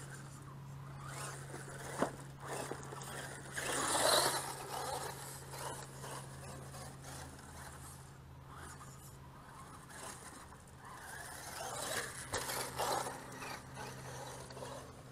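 Remote-control monster truck driving on loose dirt: tyres scrabbling and throwing soil, in irregular bursts, with a sharp knock about 2 s in and the loudest burst about 4 s in.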